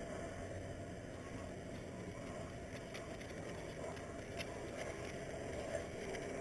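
Bicycle rolling on a paved road: a steady, muffled low rumble of tyres and wind, with a few faint ticks in the middle.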